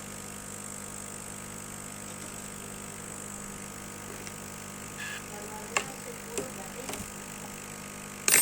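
Steady machine hum with a thin high whine from a home-built CO2 laser cutter setup while it cuts acrylic, with a few light clicks near the end and then a short, loud hiss at the very end.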